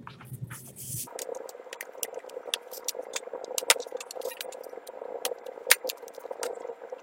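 Plastic laptop bottom cover being snapped down into place: a run of sharp clicks and light rattles from the clips and panel being handled.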